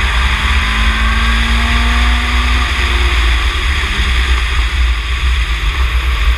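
Wind buffeting the microphone of an open-cockpit Ginetta G20 race car at speed, with the car's engine note faint underneath. The engine pitch rises slowly, then drops away about three seconds in.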